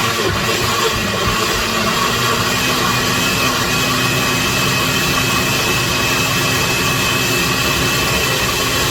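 Countertop blender running steadily, puréeing a load of fresh tomatoes with garlic and red wine vinegar, its motor holding an even whine.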